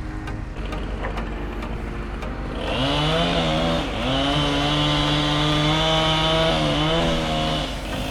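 Chainsaw revving up to full speed about three seconds in and holding there for several seconds, dipping briefly once near the start, then dropping off near the end. Before it rises, a quieter steady engine sound runs underneath.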